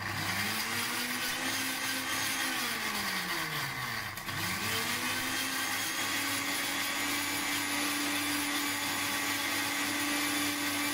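Electric mixer grinder grinding mint leaves, onion, green chillies, garlic and curd into chutney in pulses: the motor whine rises as it spins up, falls away about three seconds in, then starts again just after four seconds and runs steady until it cuts off.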